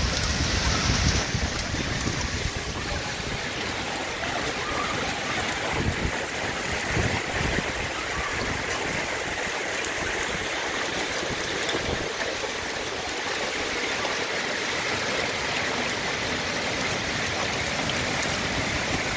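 Heavy hailstorm: hailstones and rain falling hard, a dense, steady hiss.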